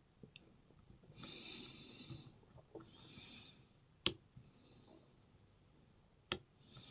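Faint scratching of a shallow hook pick dragged forward across the pins of an Iseo euro cylinder, with two sharp clicks about four and six seconds in, as pins set under tension.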